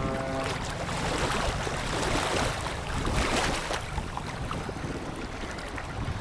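Wind buffeting the microphone over rushing sea water, swelling about two seconds in and easing after about four.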